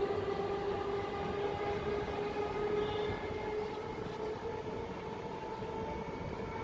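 Electric multiple unit (EMU) local train running, a steady humming tone over a rumbling noise that gradually gets quieter.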